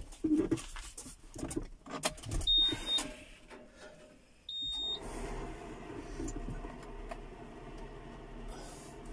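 Inside a John Deere tractor cab, with the engine not yet started: clicks and knocks as the driver handles the controls, and two short high beeps from the dashboard about two seconds apart. After the second beep, as the ignition comes on, a steady low hum sets in.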